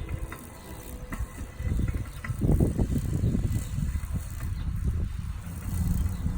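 Homemade radio-controlled lawn mower driving over grass: an uneven low rumble with a light rattle, growing louder about two seconds in.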